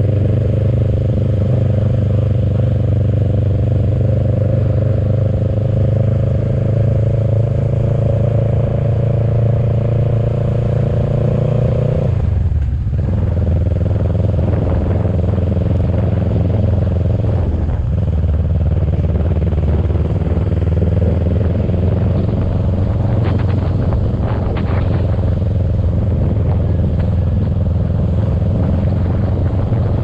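Motorcycle engine running steadily while under way. The engine note breaks off briefly about twelve seconds in and dips again a few seconds later before settling back.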